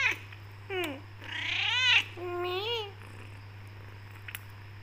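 Tortoiseshell Persian cat meowing: three short meows in quick succession, the middle one the loudest, then quiet with a few faint clicks.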